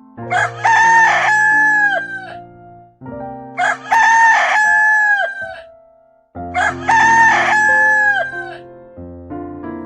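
Rooster crowing cock-a-doodle-doo three times, each crow about two seconds long and falling in pitch at its end, over soft background music.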